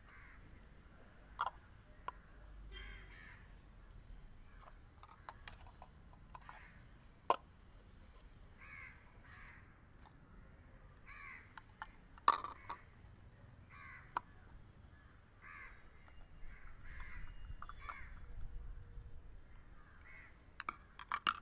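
Hard plastic toy cups clicking and clacking now and then as they are handled and fitted together, over short calls repeating every second or so in the background.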